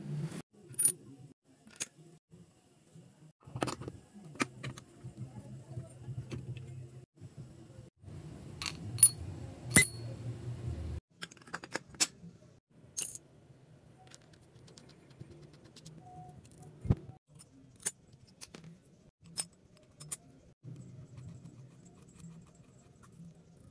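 Metal engine parts of a Suzuki DR650 clinking and tapping as the clutch basket and hub are handled and fitted onto the shaft: scattered sharp metallic clicks, the loudest pair about nine to ten seconds in. A low hum runs underneath in stretches.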